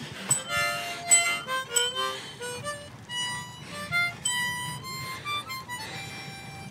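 Harmonica playing a quick tune of single notes.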